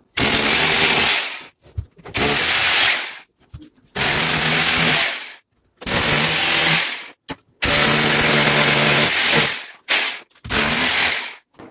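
Corded electric drill boring mounting holes into a plastered wall, in six separate bursts of about a second each with short pauses between them as it is moved from mark to mark.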